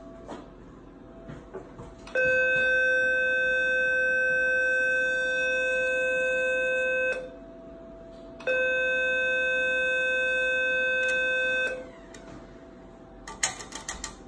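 Surgitron Dual 120 radiosurgery unit sounding its steady electronic activation tone twice, about five seconds and then about three seconds, each starting and stopping sharply while the handpiece electrode is energised. A quick run of sharp clicks comes near the end.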